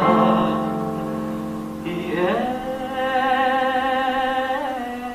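A man singing long held notes with no words: one steady note, then a slide up about two seconds in to a higher note held with vibrato, which fades out near the end.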